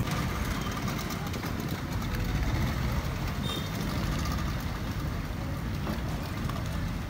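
Speedboat outboard engines running at low speed in the harbour, a steady low rumble as the propellers churn the water.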